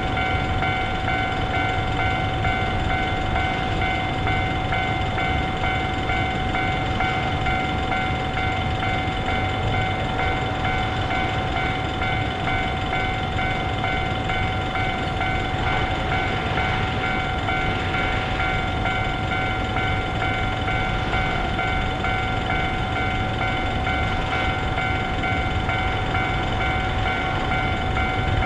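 Electronic warning bell of a Japanese level crossing on the Keio Line ringing on without a break, a steady pitched tone, over the low rumble of a train.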